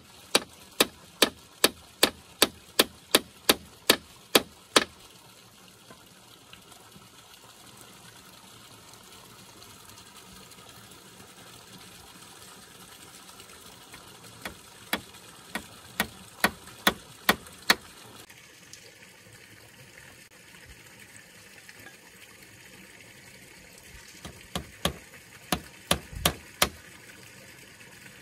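A hand tool striking wood in quick, even runs of sharp blows, about three a second, in three bursts with pauses of several seconds between them.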